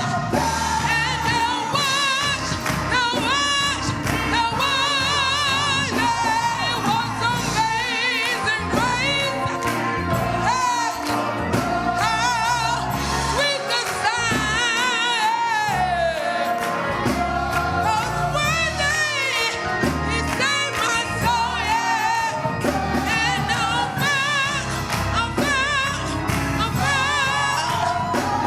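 Gospel singing with vibrato over instrumental accompaniment, a choir or soloist performing a church song.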